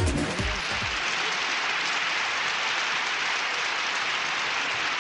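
Steady applause from a crowd.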